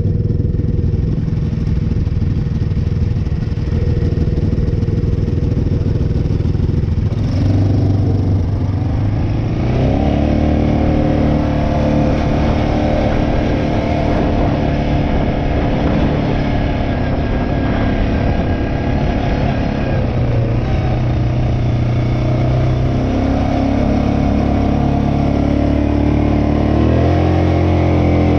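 Quad ATV engine idling, then revving up about seven seconds in and running steadily at higher revs as the quad rides. The engine note drops for a few seconds around two-thirds of the way through and climbs again near the end.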